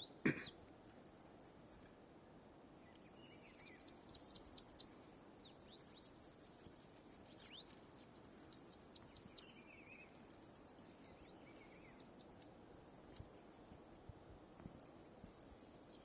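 Bananaquit (sibite) singing: phrases of rapid, high-pitched descending notes run together, repeated several times with short pauses between them.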